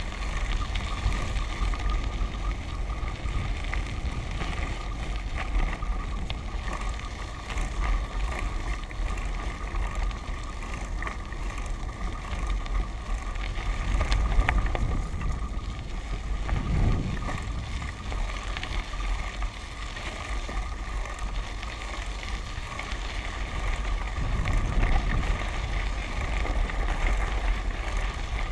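Tyres rolling over a gravel-and-dirt track, with wind rumbling on the microphone of a camera mounted on the moving vehicle. The noise is steady, swelling slightly a little after the middle and again near the end.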